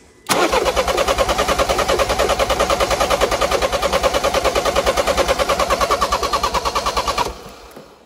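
Peugeot 5008's starter motor cranking the engine at an even, rapid beat for about seven seconds, driven directly from outside its normal starting circuit, then cutting off abruptly. The engine turns over without catching. The car logs P0016, crankshaft and camshaft out of sync, which the mechanic puts down to wrong valve timing from the timing chain.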